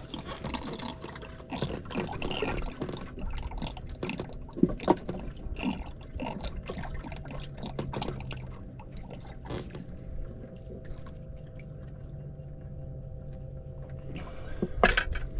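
Water splashing and dripping as a hand rummages in a boat's live bait well for a shrimp, with a steady low hum underneath. The splashing settles about ten seconds in, and there is one sharp knock near the end.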